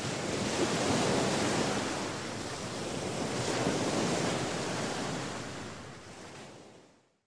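Sea surf washing, a steady rush that swells twice and fades away near the end.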